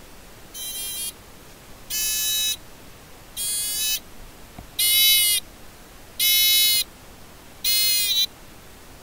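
littleBits buzzer module sounding in short pulses driven by a pulse bit, about one buzz every second and a half. The buzzes grow louder over the first few as the dimmer bit feeding the buzzer is turned up, then stay steady.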